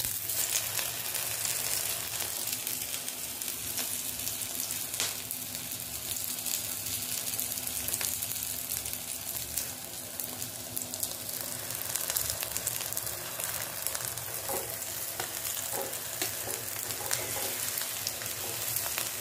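A large potato tikki coated in cornflour frying in hot refined oil, sizzling steadily with fine crackles.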